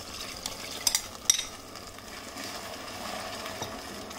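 Sauce poured into a pot of sautéed onions and capsicum and stirred with a wooden spatula: a few sharp knocks of utensils against the pot in the first second and a half, then a steady sizzle as the sauce cooks.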